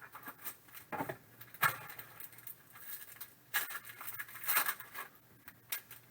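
Trading card packaging being handled and opened by hand: scattered crinkles and rustles with a few sharp clicks.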